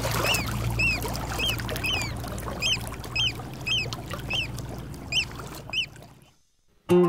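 A bird repeating a short, high, arched call about twice a second over a steady low rumble. It fades out about six seconds in, and music starts just before the end.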